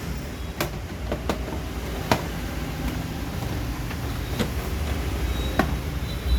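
Scattered sharp clicks and knocks of hands handling the metal case and power supply of an open HP Z600 workstation, about five in all, over a steady low rumble.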